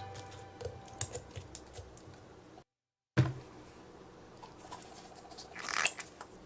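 Light, scattered clicks and taps of small objects being handled, with a soft rustle near the end. The sound drops out completely for about half a second midway, then comes back with a sharp click.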